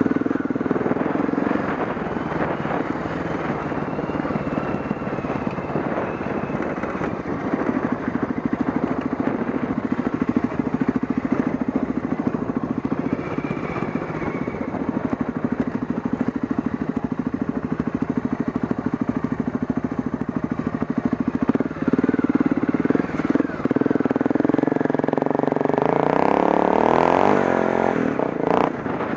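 Dirt bike engine running at low speed up a rocky gravel trail, with frequent knocks and rattles as the bike rides over stones. The revs rise and fall several times near the end.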